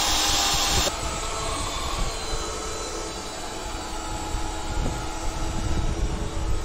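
Electric drill with a twist bit boring into a steel truck chassis rail, a loud steady hiss that cuts off abruptly about a second in. After it, a quieter steady mechanical hum with an irregular low rumble.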